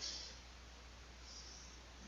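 Near silence: faint steady hiss with a low hum, room tone between spoken lines.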